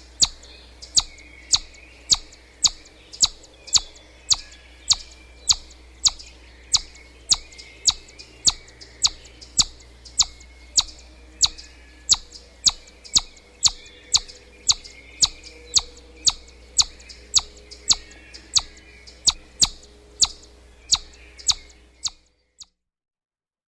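Chipmunk giving its repeated sharp chip call, a high chirp about twice a second, over faint outdoor ambience. The calls stop abruptly near the end.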